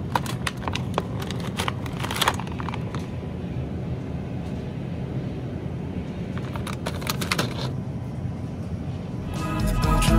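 Plastic ravioli clamshell crackling and clicking as it is handled, in two spells, first for about three seconds and again around seven seconds in, over a steady low store hum. Music comes in near the end.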